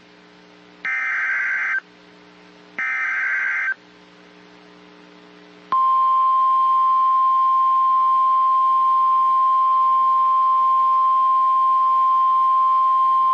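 NOAA Weather Radio Emergency Alert System signal: two bursts of the SAME digital header, each a harsh warbling data screech about a second long, a second apart, then about six seconds in the steady 1050 Hz warning alarm tone starts and holds. It announces a new warning, here a flash flood warning.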